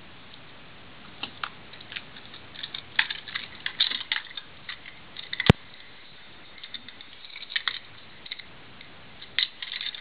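Master combination padlock being handled and its dial turned: clusters of small clicks and rattles, with one sharp, louder click about halfway through.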